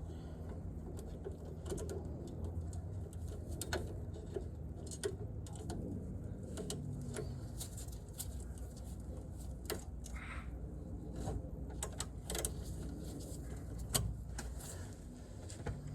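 Scattered light clicks and taps of hand tools at irregular intervals over a steady low hum, as a hub spreader tool is worked to open the wheel hub's strut clamp.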